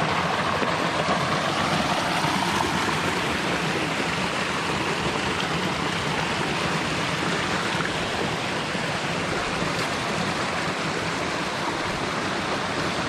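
Waterfall: a steady, loud rush of water falling and splashing over rocks.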